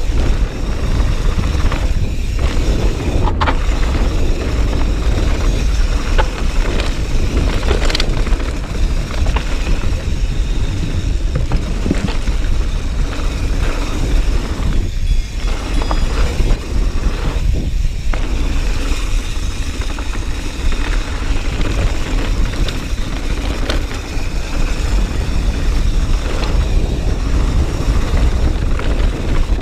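Mountain bike descending fast on a loose gravel trail: a steady low rumble of wind on the microphone over the crunch of tyres on gravel, with a few sharp clicks and knocks from the bike.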